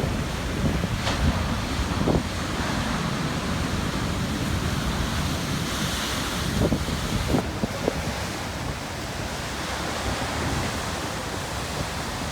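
Atlantic surf churning over a rocky shore at high tide, a steady wash of broken water with a few short splashes, and stormy wind on the microphone.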